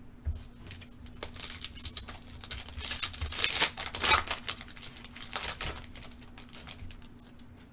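Foil wrapper of a 2011 Panini Crown Royale football card pack being torn open and crinkled, loudest in the middle, followed by softer rustling as the cards are slid out and handled.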